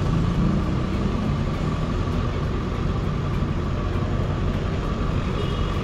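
Street traffic: a vehicle engine running close by, a steady low rumble, with a faint steady whine above it.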